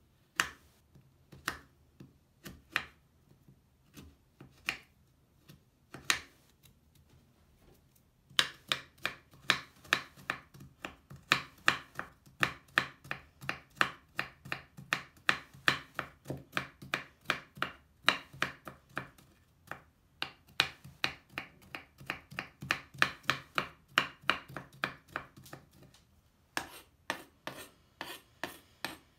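Kitchen knife chopping a crumbly Lush bubble bar on a wooden cutting board, each stroke a crisp crunch with a knock of the blade on the board. A few separate cuts come about a second apart, then quick steady chopping at about three strokes a second, a short pause, and a last run of chops near the end.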